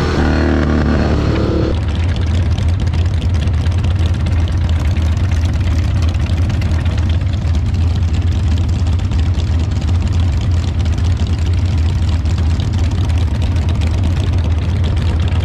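A motorcycle engine changes pitch over the first two seconds as the bike slows, then motorcycle engines idle with a steady low rumble.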